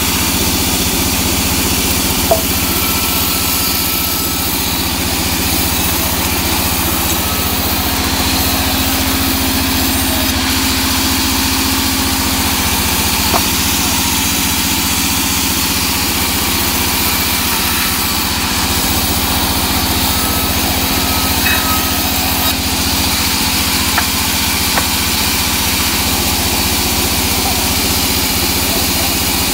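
Sawmill band saw running steadily, with a few faint light knocks of wood being handled.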